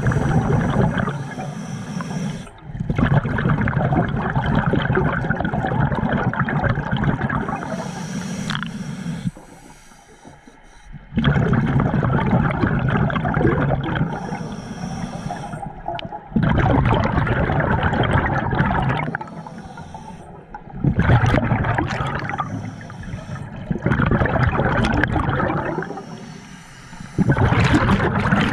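Scuba regulator exhaust bubbles heard underwater: a diver breathing out in long bubbling rushes of a few seconds each, with short pauses between them for each breath in.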